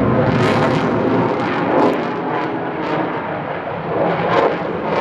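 Aircraft engine noise from a plane flying a display, a steady, loud rushing sound that eases slightly past the middle.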